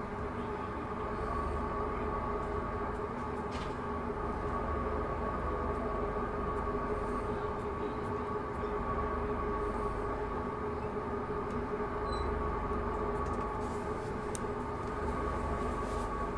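Steady mechanical hum and low rumble of a stationary Pakistan Railway passenger train, heard from inside a coach, with a few faint clicks.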